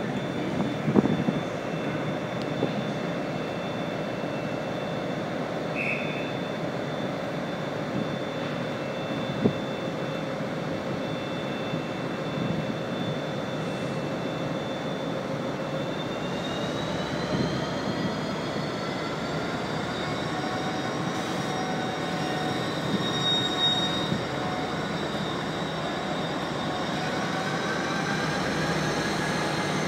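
Diesel-hauled train with Mk3 coaches, heard from an open coach window: a steady running hum with a high tone. About halfway through, the tones begin to rise slowly and keep climbing as the Class 57 locomotive powers up, with a few light knocks.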